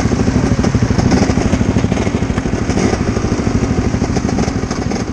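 Small 125 cc sport motorcycles idling together at a standstill, their single-cylinder engines giving a fast, even pulsing.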